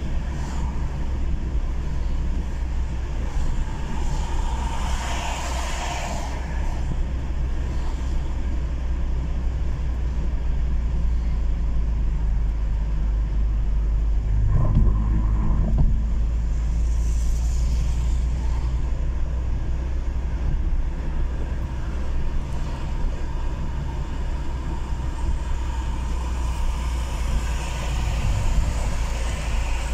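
Steady low road rumble of a car driving, heard from inside the car, with a brief bump about halfway through as the wheels cross a paved crosswalk.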